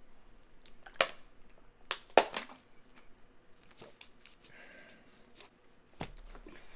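A handful of sharp, brief clicks and small handling noises, about five spread over several seconds, with a faint rustle in between.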